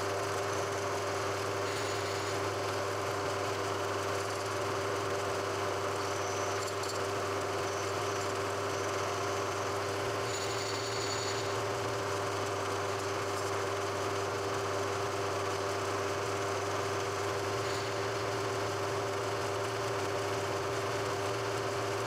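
A machine running steadily with a constant, unchanging hum and a steady tone, like an electric motor under even load.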